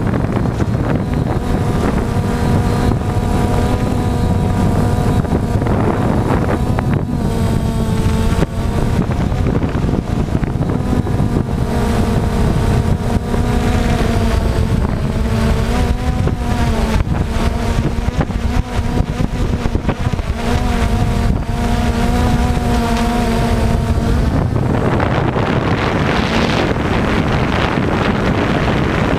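DJI Phantom quadcopter's electric motors and propellers whirring, heard from the drone's own camera: a steady whine that wavers in pitch as the motors change speed. About 24 seconds in, the whine gives way to a louder rushing noise as the drone comes down close to the ground.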